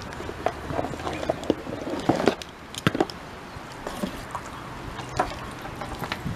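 Handling noise of dog collars and leashes: rustling in a cardboard box, with scattered clicks and knocks of buckles and straps against the box and a wooden deck, loudest a little over two seconds in, near three seconds and about five seconds in.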